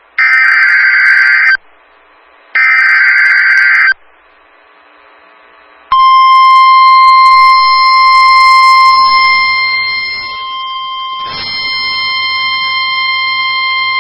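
Emergency Alert System SAME header: two short buzzy data bursts of about a second and a half each, a second apart. About six seconds in, the NOAA Weather Radio 1050 Hz warning alarm tone starts and holds as one steady, loud, high tone. Together they signal that a new warning is about to be broadcast, here a severe thunderstorm warning.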